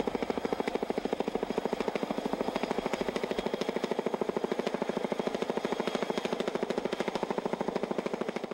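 Helicopter rotor blades chopping in a rapid, even beat, fading out near the end.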